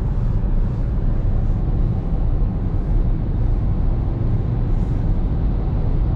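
Steady rumble of a car's engine and tyres on the road, heard inside the moving car.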